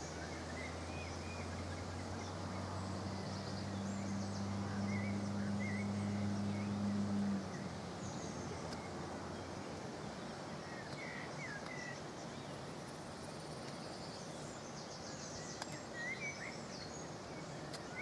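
Small birds calling in short chirps now and then over a steady rush of flowing river water. A low steady hum runs under it for the first seven seconds or so, then stops.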